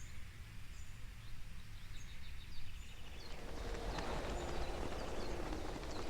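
Outdoor forest ambience: small birds chirping in short high calls over a steady low rumble, with a rustling noise building from about halfway.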